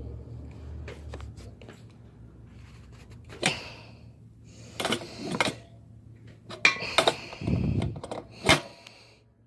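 Several separate sharp clicks and clanks of small hard objects being handled, a second or more apart, with a dull thump about eight seconds in.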